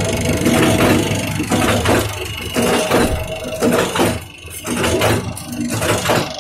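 10-die rotary tablet press running, a steady mechanical hum with regular clacking of the punches as it presses tablets.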